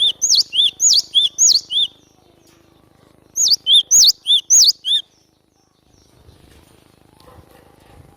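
Cinereous tit (glatik batu) singing in two bouts of rapidly repeated two-note whistled phrases, each a sharp high downslurred note followed by a lower one, about three phrases a second. The song stops about five seconds in.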